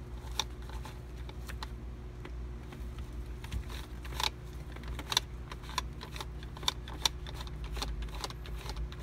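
Irregular plastic clicks and rubbing as a microfiber cloth scrubs the steering-wheel control buttons, over a steady low hum.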